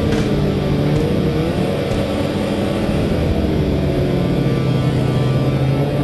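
Arctic Cat snowmobile engine running at speed along a trail. Its pitch wavers up and down over the first couple of seconds, then holds steady.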